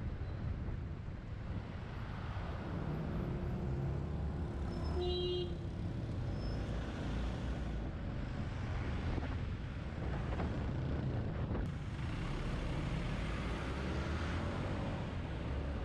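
Yamaha XT250 Serow's air-cooled single-cylinder engine running under way in traffic, with surrounding road and traffic noise. A brief high tone sounds about five seconds in.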